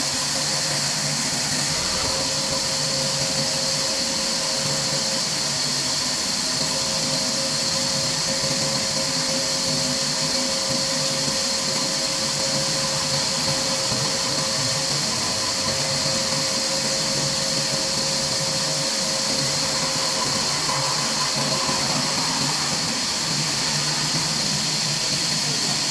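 Machinery running steadily: a loud, even hiss with a faint steady hum under it.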